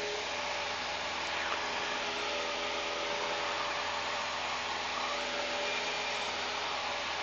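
Cessna 172's piston engine and propeller droning steadily, heard from inside the cockpit during the climb. The engine is at reduced climb power, about 24 inches of manifold pressure and just under 2500 RPM.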